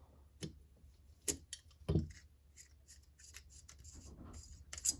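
Small metal carburetor parts being handled: scattered sharp clicks and taps, a louder knock about two seconds in, and brief scraping or rubbing near the end.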